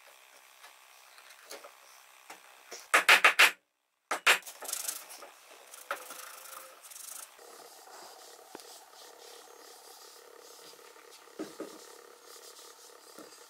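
A quick cluster of sharp wooden knocks about three seconds in, and one more a second later, as pieces of a wooden corner joint are pressed and tapped together. Then a rag rubs faintly over the wood, wiping oil onto it.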